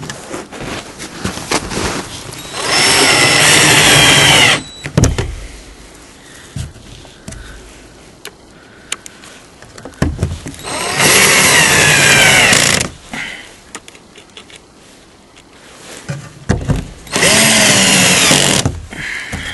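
Electric drill run in three bursts of about two seconds each, its motor pitch wavering as it works, with clatter and handling noises between the bursts.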